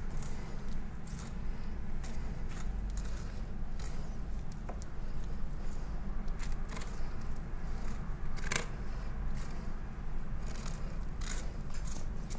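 Knife blade scraping and clicking along a mutton snapper's backbone and rib bones as a fillet is cut free: a run of short, irregular crisp scrapes over a steady low hum.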